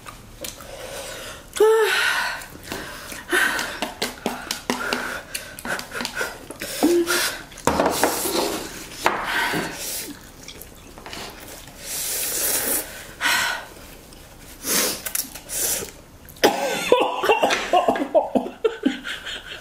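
People slurping and chewing spicy Korean fire noodles, with repeated coughs and hard breathing as the heat of the noodles catches them.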